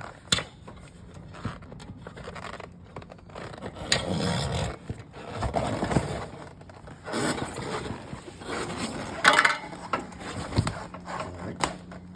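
Rubber tire being worked off a trike's rear wheel rim by hand, scraping and rubbing against the metal in irregular stretches, with a few sharp clicks.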